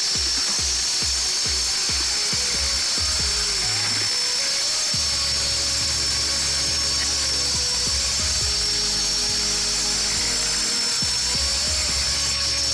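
Power cutting tool with a thin blade cutting into concrete, a steady high whine, with background music playing over it.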